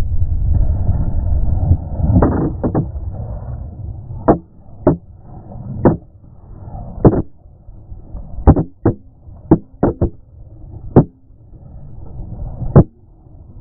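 Low rumble for about two seconds, then a long run of irregular hard knocks and thuds, about fifteen of them, as the helmet camera tumbles and strikes the ground in a motorcycle crash.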